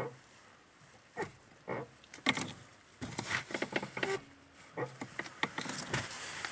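Lada Kalina clutch pedal squeaking and crunching as it is pressed and released. Short separate creaks come first, then a denser run of creaking from about halfway through. It is a fault that appeared soon after a new clutch cable was fitted.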